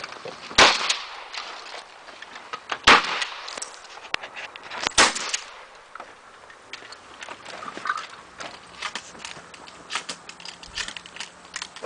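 Three shotgun shots about two seconds apart from a Mossberg 590 pump-action shotgun, each sharp report followed by a short ringing echo. After the third shot come many smaller clicks and knocks.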